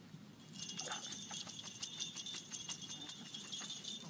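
A small jingle bell on a dog's collar jingling quickly and unevenly, starting about half a second in and going on for about three and a half seconds, as the dog moves about.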